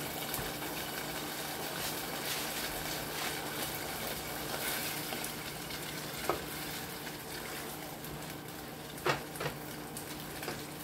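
Sauce sizzling steadily in a pan as it sautés, with a few sharp clicks about six and nine seconds in.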